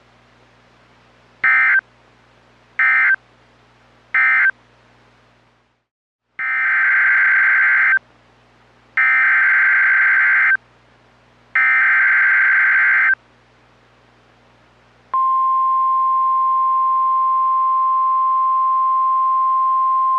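Emergency Alert System SAME data bursts, a harsh buzzy warble: three short end-of-message bursts, then three longer header bursts announcing a new alert. About fifteen seconds in, the steady single-pitch 1050 Hz NOAA Weather Radio warning alarm tone begins and holds.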